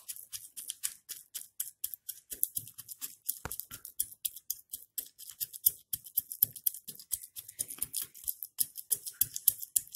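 Back end of a ghee-greased wooden rolling pin pounding a warm sesame-seed and jaggery mixture in a small steel bowl, to press it into a tilkut cup. The strokes come in a quick, steady train, several a second, each a crisp crunch of packed seeds.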